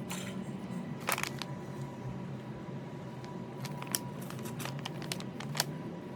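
Scattered sharp clicks and light knocks of small parts being handled, over a steady low hum.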